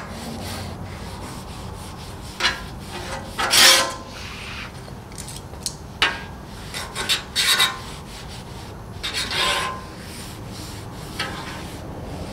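Paper towel held in metal tongs scrubbed across the hot steel top of a Blackstone griddle in several short wiping strokes, spreading seasoning conditioner over the surface.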